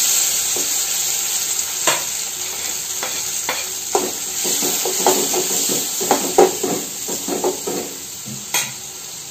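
Chopped onions and tomatoes sizzling as they hit hot oil tempered with cumin and mustard seeds in a steel pan. The sizzle is loudest at first and slowly dies down. Through it a spoon clinks and scrapes, pushing the last pieces off the cutting board and stirring them in the pan, most busily in the middle.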